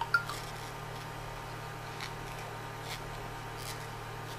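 Faint ticks and soft rustling of a metal crochet hook working yarn into single crochet stitches, over a steady low hum, with one sharp click just after the start.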